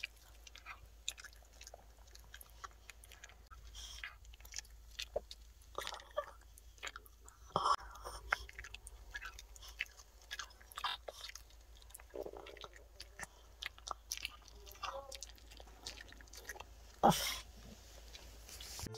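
Miniature pinscher chewing a homemade dog treat stick: faint, irregular crunching and mouth clicks, with one louder crack near the end.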